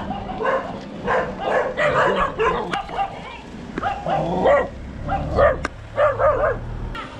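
Dogs barking and yipping in quick, repeated short barks.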